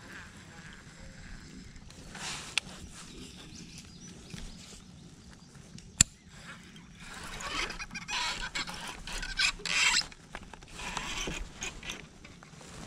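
Baitcasting reel: a sharp click about six seconds in, then the handle is cranked and the reel whirs and clicks as the line and jig are reeled in.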